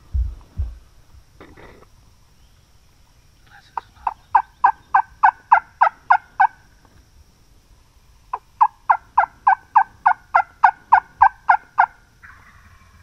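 Turkey yelping: two long, loud series of about fifteen evenly spaced yelps each, roughly five a second, separated by a pause of about two seconds.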